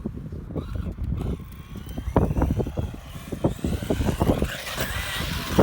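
Radio-controlled car driving over sand: an uneven low rumble broken by many short knocks, with a faint motor whine that rises and falls.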